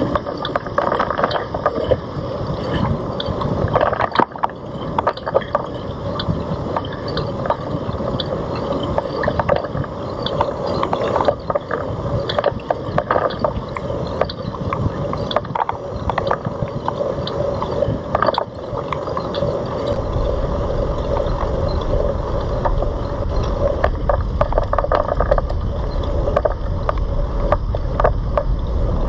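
Riding noise of a Citibike heard from a camera mounted on it: steady rattling and many small clicks and knocks as the bike rolls over the pavement. About twenty seconds in, a steady low rumble joins and stays.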